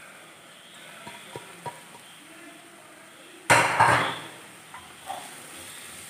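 A wooden spatula taps lightly against a nonstick pan a few times, then about three and a half seconds in a sudden burst of scraping and sizzling as spice powders are stirred into onions frying in oil, fading over about a second.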